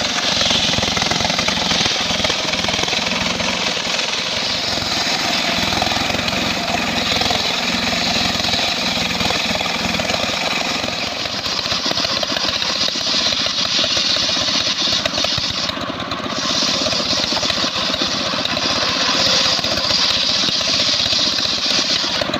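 Home-built circular sawmill's spinning blade ripping a sengon (albasia) log into square timbers: a loud, continuous harsh cutting noise, dipping briefly about three-quarters through.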